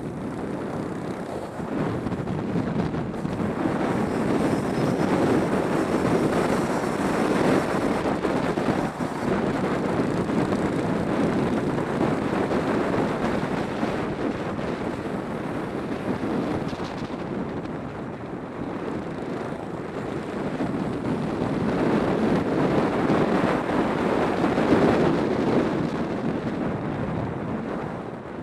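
Trail motorcycle on the move, wind rushing over the bike-mounted microphone with the engine running beneath it. The rush grows louder a few seconds in and again near the end.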